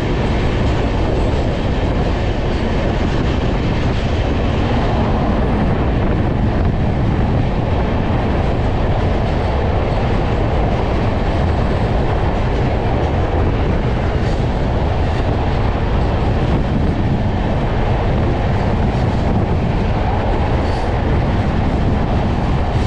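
Indian Railways express train running at speed, heard from its open coach door: a steady rush of wind and wheel-on-rail noise with faint clacks. A passenger train on the next track passes close alongside.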